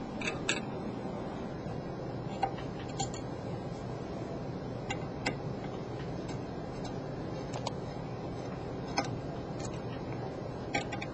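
Small Phillips screwdriver backing out the screws of an arc lamp housing's backplate: scattered faint clicks and ticks of the bit and screws, irregularly spaced, over a steady background hiss.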